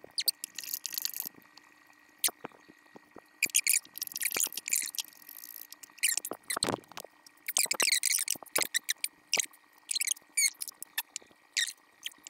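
Hand wrench and ratchet work on a VW Super Beetle's front suspension nuts and bolts: short, irregular spurts of metallic clicking and squeaking, with one heavier clunk about two-thirds of the way through.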